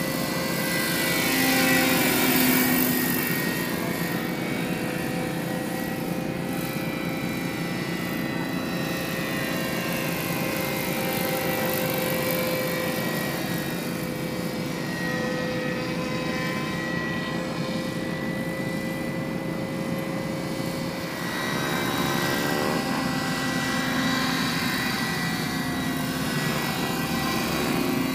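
Radio-controlled scale model helicopter flying: a steady whine of motor and rotors that swells a couple of seconds in, then shifts in pitch and grows louder about three quarters of the way through.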